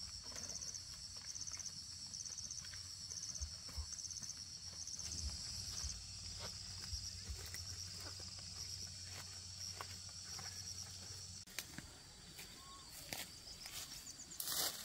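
Insects chirping about twice a second, the chirps merging into a steady trill about five seconds in. Under them a low hum stops about two-thirds of the way through, with scattered light knocks and a louder clatter near the end.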